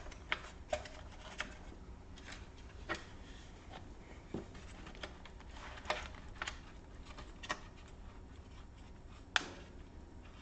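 Scattered sharp clicks and taps of the HP EliteBook 8470p's plastic casing being handled and worked loose during disassembly, about ten at uneven intervals, the sharpest near the end.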